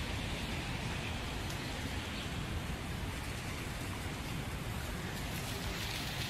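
Steady hiss with a low rumble: outdoor street noise on wet pavement, with no distinct events.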